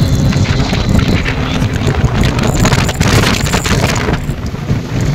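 Wind buffeting the microphone of a rider at speed on a motorcycle, over a steady low rumble of engine and road noise.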